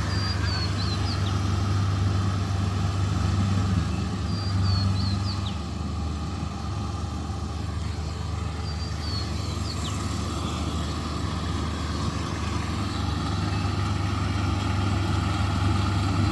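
Rice combine harvester's engine running steadily with a deep hum, easing a little about six seconds in and building again near the end. A faint high chirp recurs every four seconds or so.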